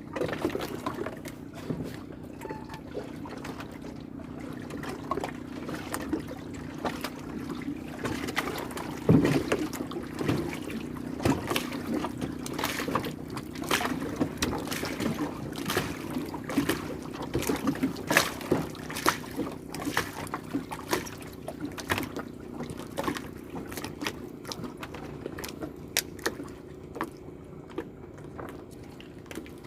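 Water splashing and dribbling in short, irregular sharp bursts over a steady low hum.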